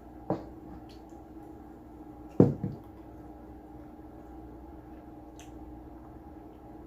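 Two short thumps over a steady low hum, the first small, the second about two seconds later much louder and followed by a couple of quick smaller knocks.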